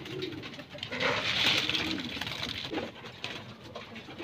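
Racing pigeons cooing several times, low and rolling, with a louder burst of rustling noise about a second in.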